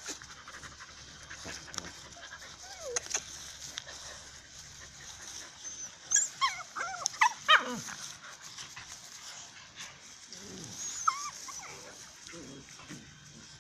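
Dogs play-fighting, with a puppy giving high-pitched yelps and whimpers, most of them in a quick cluster about six to eight seconds in and one more short whine near eleven seconds.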